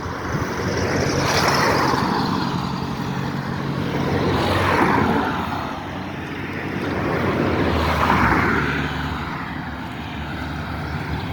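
Road traffic: three vehicles pass one after another, each swelling up and fading away, over a steady low hum.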